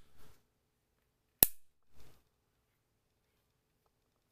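Plastic ball-and-socket leg joints of a flexible gorillapod-style tripod snapping as the legs are bent by hand: one sharp, loud click about a second and a half in, with fainter handling sounds around it.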